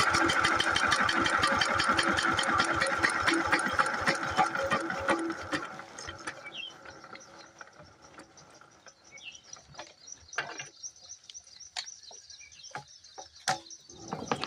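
An 8 hp single-cylinder diesel water-pump engine chugging with an even beat, then slowing and dying away about five or six seconds in. A few scattered clicks and knocks follow in the quiet, and the engine sound comes back loud at the very end.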